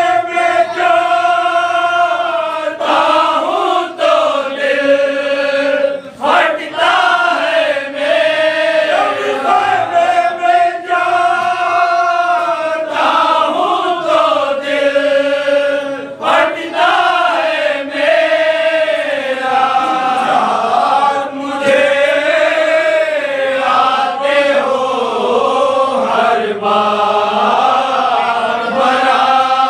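A group of men chanting a marsiya, a Shia mourning lament, together in a slow melodic recitation, phrase after phrase with short breaks between lines.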